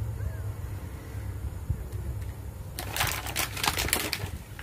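Small plastic toy vehicles clicking and clattering against each other and the tabletop as they are handled and set down. It comes as a quick run of clicks lasting about a second and a half, starting a little past halfway, over a steady low hum.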